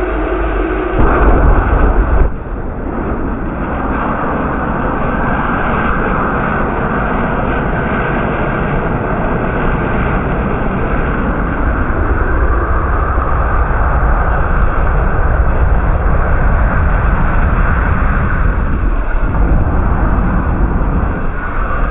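Liquid helium boiling off from an MRI magnet's cryostat during a forced rapid warm-up, venting as a loud, continuous rushing hiss. It is loudest for about a second, starting about a second in, then settles to a steady rush.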